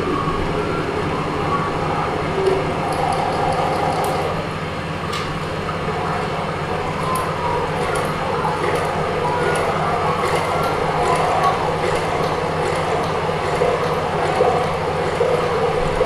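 Improvised experimental sound performance: a dense continuous drone over a steady low hum, with scattered faint clicks and no pause.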